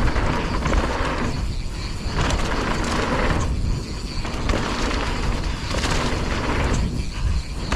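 Strong wind buffeting the camera microphone in a steady low rumble. It is mixed with the rush of mountain-bike tyres on a dirt trail, which swells and eases every second or two, and scattered clicks and rattles from the bike over bumps.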